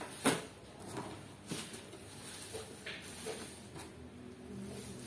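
Handling and unpacking noises from a light bar and its packaging: a sharp knock about a quarter second in, then scattered softer clicks and knocks, with a faint low hum near the end.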